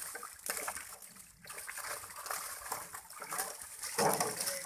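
Pond water sloshing and splashing in irregular bursts as people wade waist-deep and work a fish net, with a louder splash about four seconds in.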